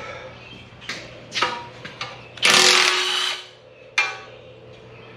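Cordless power tool run in one burst of about a second, between a few sharp metallic clinks and knocks.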